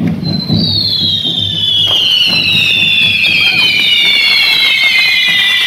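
Correfoc fireworks (carretilles on a devil's fork) spraying sparks, hissing with a long whistle that falls slowly in pitch. A sharp crack comes about two seconds in.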